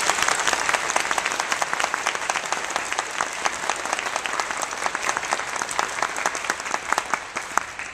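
Audience applauding, many hands clapping at once, thinning out toward the end.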